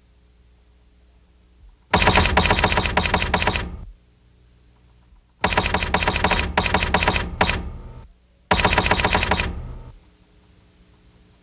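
Typewriter keys striking in three rapid runs of clacks, each one to two seconds long, with short pauses between.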